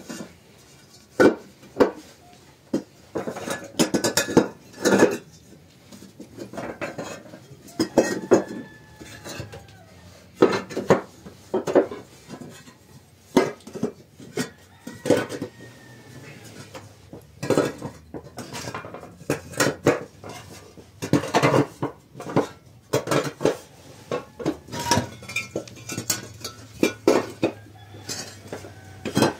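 Hollow clay bricks clinking and knocking against one another as they are set down one by one and laid edge to edge on a floor, in irregular sharp clacks.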